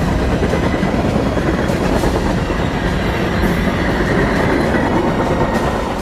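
Norfolk Southern train rolling past, its cars' wheels running on the rails in a steady, slowly fading noise.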